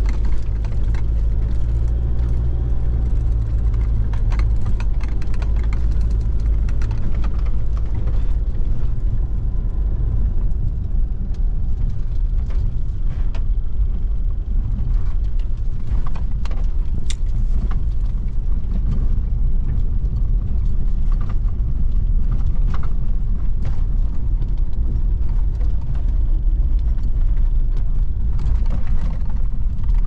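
Four-wheel-drive vehicle driving over rough ground: a steady low rumble of engine and tyres, with scattered knocks and rattles.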